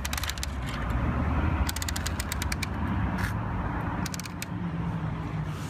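Geared hand-crank winch of a Bruder Liebherr toy crane clicking rapidly in short spurts as its red crank knob is turned, over a steady low rumble.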